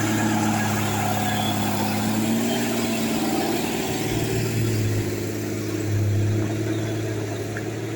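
Diesel engine of an old Mitsubishi Fuso truck running: a steady low drone whose pitch swells and dips slightly.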